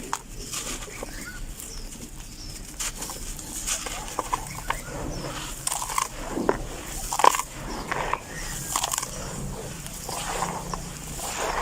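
Dry red dirt chunks being crumbled: irregular gritty crunches and crackles, with one louder crunch a little past the middle.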